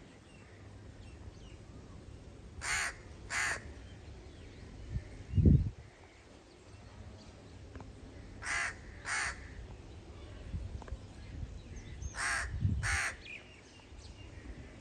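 A crow cawing in pairs of harsh caws: two calls close together, repeated three times. A brief low thump about five and a half seconds in is the loudest sound.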